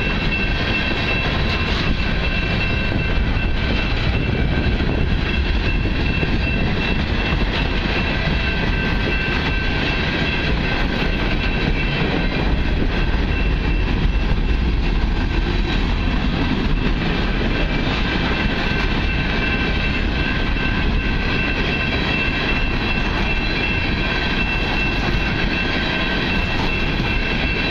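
Freight train of open-top hopper cars rolling past at a grade crossing: a steady rumble and clatter of steel wheels on rail, with a high tone held steady above it.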